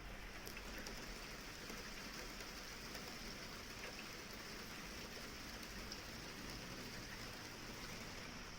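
Steady rain falling, with scattered drops ticking on surfaces.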